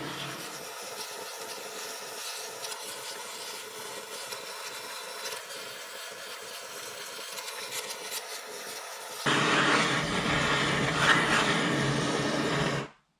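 Handheld cartridge gas torch burning with a steady hiss as it heats a cylinder head before valve seats are pressed in. It turns louder and fuller about nine seconds in, then stops abruptly near the end.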